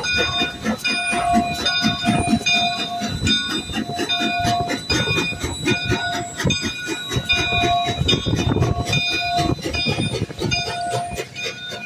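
Canadian Pacific 2816, a Hudson-type steam locomotive, rolling past slowly. Its bell rings about once a second over the clank and rumble of its running gear and wheels on the rail.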